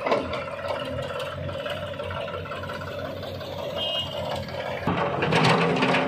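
A diesel engine runs steadily. About five seconds in, a louder rush of noise sets in as a JCB 3DX backhoe bucket tips a load of soil into a tractor trailer.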